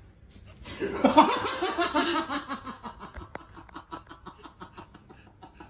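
A person laughing: a run of quick, rhythmic laughs that starts about a second in, loudest at first, then trails off.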